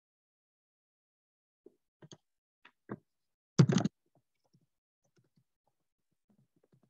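Computer keyboard and mouse clicks: a few scattered clicks, a louder short clatter of keystrokes about three and a half seconds in, then faint key taps.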